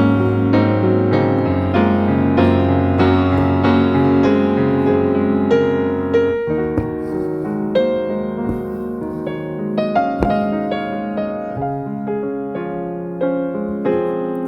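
Background piano music: a gentle melody over sustained bass notes.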